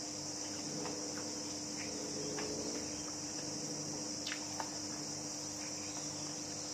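Steady high-pitched chirring of insects, with a low steady hum beneath and a few faint scattered clicks.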